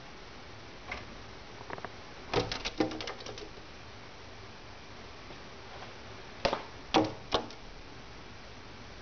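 A bird knocking its head and beak against window glass, typical of a bird attacking its own reflection. A quick run of sharp taps comes about two and a half seconds in, then three louder knocks between six and a half and seven and a half seconds.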